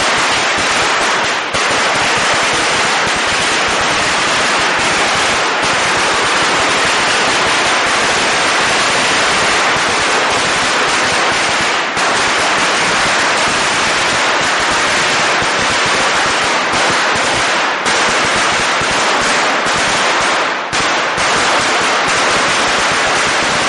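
A long string of Chinese firecrackers going off in a continuous rapid crackle of bangs, with only a few brief dips.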